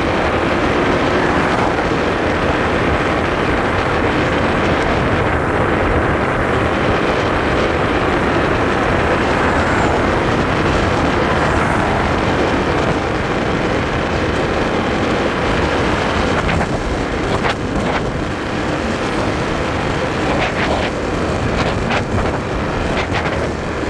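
Wind rushing over the microphone together with a Honda motorbike's small engine and tyres running steadily at low road speed, with a few short clicks near the end.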